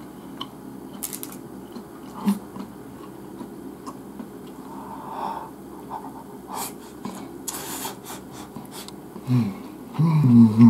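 A person eating with chopsticks: chopsticks clicking now and then against a rice bowl, chewing, and breathing through the nose. Near the end come two short, low voiced hums from the eater.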